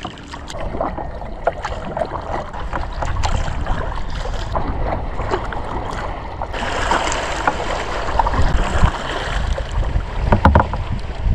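Kayak paddling: water splashing and dripping off the paddle, with wind rumbling on the microphone. About halfway through, a steadier rush of water joins in.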